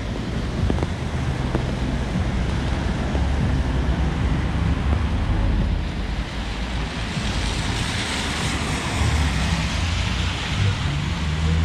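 Traffic on a rain-soaked road: car tyres hissing through standing water as vehicles pass, over steady rain and a low rumble. The hiss swells about two-thirds of the way through as a car goes by close.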